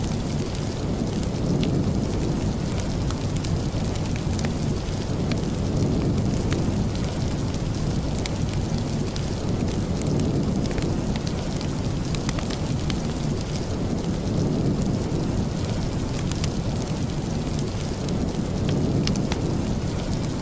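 Steady rain ambience with a deep, continuous low rumble underneath and scattered sharp little crackles and drips throughout.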